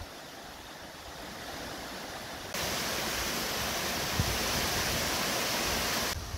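Steady rushing of flowing water, as from a stream running full. It turns abruptly louder and brighter about two and a half seconds in and drops back just as abruptly near the end.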